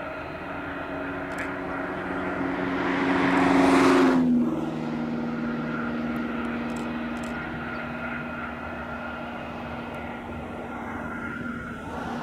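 Airbus A320's jet engines at taxi power: a steady hum with a high whine. About four seconds in, a vehicle passes close by: its rush swells to the loudest point, then cuts off as its pitch drops.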